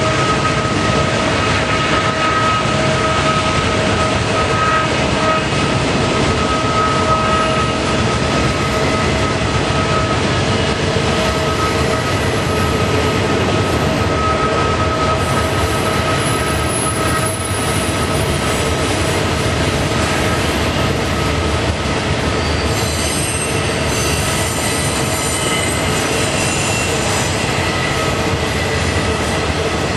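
Intermodal freight train's flatcars carrying truck trailers rolling past on a tight curve, a loud steady rumble of wheels on rail. Steel wheel flanges squeal against the curved rail: a steady whine at first, then several high-pitched squeals from about halfway, strongest in the last third.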